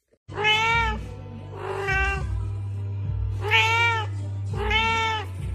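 A cat meowing four times, each call a drawn-out meow that rises and falls in pitch, over a steady low hum.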